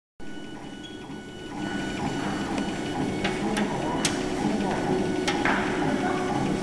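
TZJD 1290S laser engraving machine at work on stone, its laser head driven along the gantry with a steady mechanical whirr that gets louder about one and a half seconds in. Several sharp clicks come through the middle.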